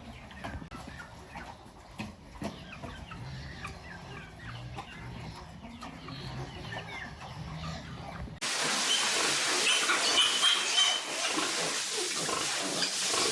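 Chickens clucking, with scattered short calls. About eight seconds in the sound cuts abruptly to a louder, brighter stretch of the same farm-animal sound.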